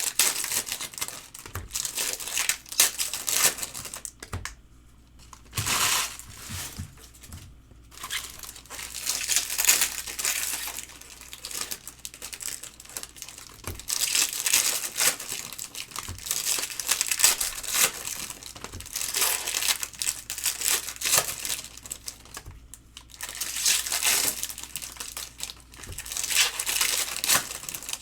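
Foil trading-card pack wrappers crinkling and tearing as packs are ripped open by hand, going on in stretches with a few short pauses.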